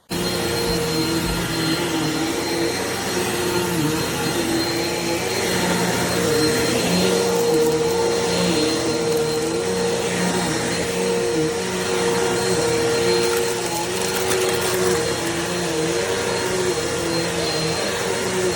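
Eureka PowerSpeed bagless upright vacuum cleaner switching on and running steadily, with a high whistle over its motor drone. The lower motor tones dip in pitch briefly every few seconds.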